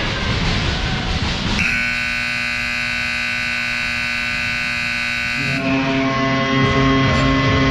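Ice rink's buzzer horn sounding one steady blast of about four seconds, starting about a second and a half in and cutting off suddenly. Music from the arena's speakers follows near the end.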